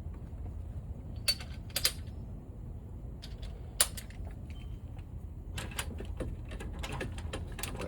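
Scattered metal clicks and clinks of a socket, extension and torque wrench being worked onto a lower cylinder head bolt of a Dodge 5.2L (318) V8, at uneven intervals and bunched near the end, over a steady low hum.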